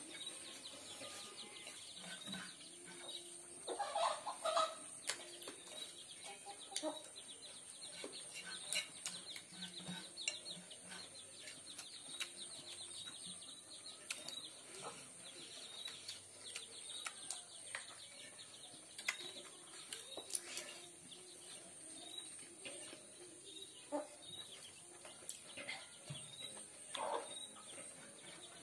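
Eating sounds: chewing and lip smacks, with fingers working rice on a steel plate in many small clicks. Bird calls sound in the background.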